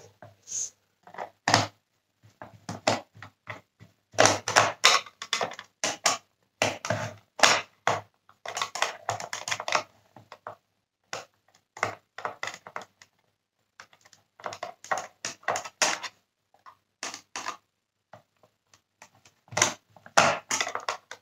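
Plastic parts of a Dyson Cinetic Big Ball's cyclone unit clicking and rattling under the fingers as its small cyclone cones are handled and pressed. The clicks come in dense, irregular clusters with short pauses.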